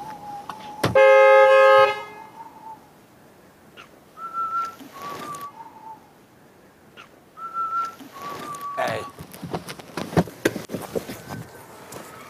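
A man whistling a slow tune in single held notes, cut across about a second in by one car-horn blast lasting about a second. The whistling then resumes, and a run of clicks and knocks follows near the end.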